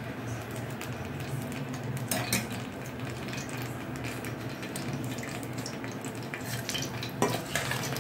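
Cooking oil heating on a hot cast-iron dosa tawa, sizzling with a steady fine crackle. Two louder clinks come about two seconds in and near the end.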